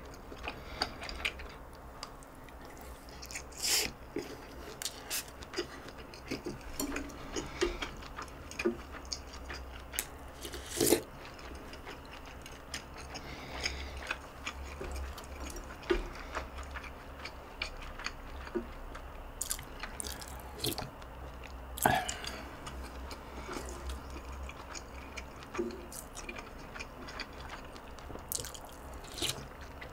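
Close-miked eating: a person chewing mouthfuls of rice and stew, with scattered sharp clicks and knocks of a wooden spoon against a bowl, the loudest about 11 and 22 seconds in, over a steady low hum.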